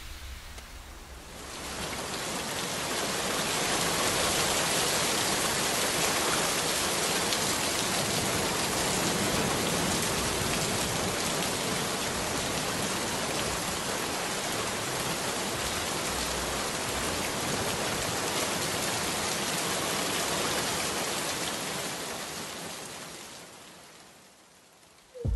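Heavy rain pouring onto wet pavement, a steady hiss that fades in over the first couple of seconds and fades away near the end.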